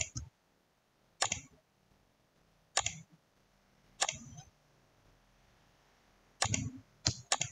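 Computer mouse clicking: six short sharp clicks, spaced a second or more apart, then three in quick succession near the end.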